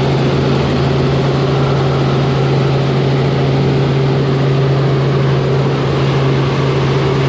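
Helicopter in flight heard from inside the cabin: a steady, loud drone of engine and rotors with a constant low hum.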